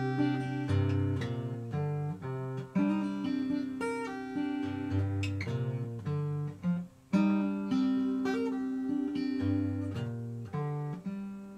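Acoustic guitar fingerpicked in an A minor pattern with the capo at the third fret, a bass line moving under plucked treble notes and hammer-ons and pull-offs. There is a short break about seven seconds in.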